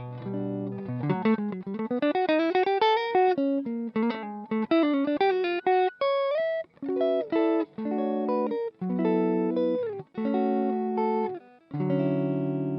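Blues music: a guitar plays a line of single notes, climbing in pitch early, then a chord starts near the end and rings on.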